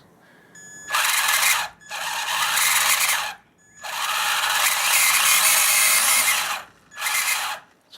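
Brushed Titan 12-turn 550 motor in a Traxxas RC truck spinning up in four bursts of throttle, each a harsh squealing grind, the third the longest at nearly three seconds. A pretty ominous sound, which the owner takes most likely for a dirty motor that needs cleaning, though it could be something internal.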